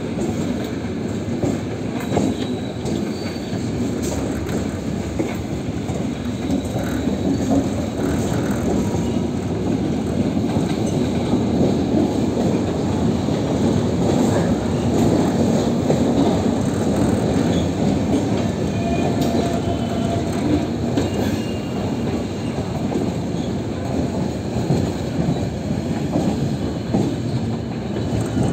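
Netaji Express passenger train running on the track: a steady rumble of wheels on rails with clickety-clack and a few faint wheel squeals, getting a little louder in the middle.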